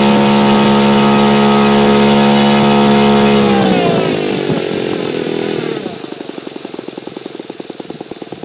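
Saito FG14-B single-cylinder four-stroke gas model-aircraft engine, converted to RCEXL ignition and turning a three-blade propeller, running steadily. About four seconds in it drops in pitch and slows, then fires in separate, fading beats as it dies down toward a stop.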